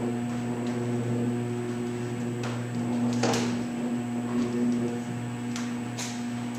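Electric drive of a 16-foot raked stage turntable running while the deck rotates: a steady hum with a faint high-pitched whine above it. A few sharp clicks and knocks come from the turning deck, the loudest a little past three seconds in.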